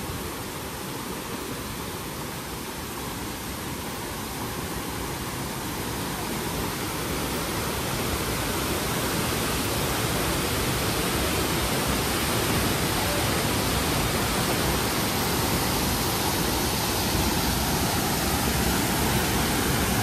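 Waterfall pouring into its plunge pool: a steady rush of falling water that grows gradually louder over the first half, then holds steady.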